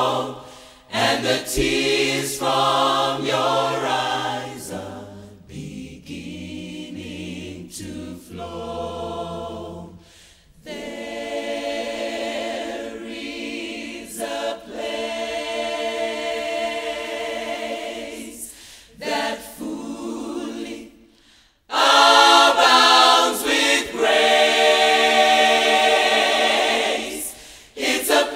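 Gospel choir singing in several-part harmony, with brief breaks about ten seconds in and again near twenty-one seconds, then louder for the last few seconds.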